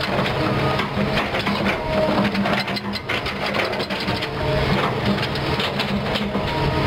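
Kobelco SK200 hydraulic excavator digging into a pile of broken rock: the bucket scrapes and scoops rock with continuous grinding and clattering over the steady running of its diesel engine under load.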